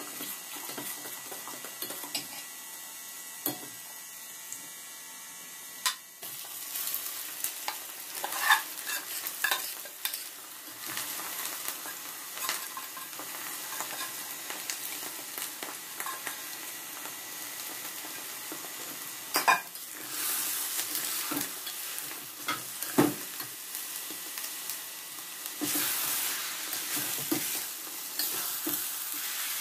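Hot sugar syrup sizzling in a steel pot while orange-coloured boiled rice is tipped in and stirred with a steel ladle, the ladle scraping and clicking against the pot. The sizzle gets louder after about six seconds.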